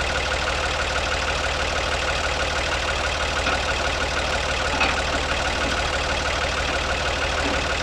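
An older tractor's engine idling steadily, with a single short knock about five seconds in.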